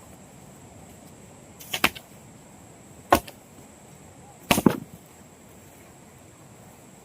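Three sharp strikes, the first two about a second and a half apart and the last a quick double hit.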